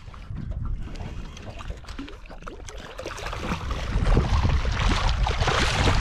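A hooked blue threadfin salmon splashing and thrashing at the water's surface beside a small aluminium boat, the splashing building from about three and a half seconds in. Wind rumbles on the microphone throughout.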